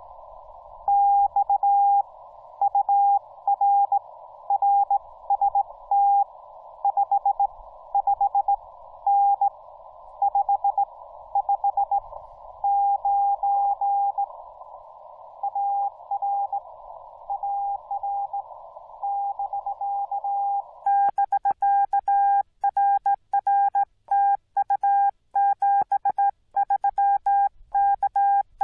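Morse code from a Yaesu FT-891 transceiver: a single beeping tone keyed in dots and dashes over the hiss of the radio's narrow CW filter, a station being received. About 21 seconds in the hiss drops out and a faster, cleaner keyed tone takes over, the radio's sidetone as the operator sends.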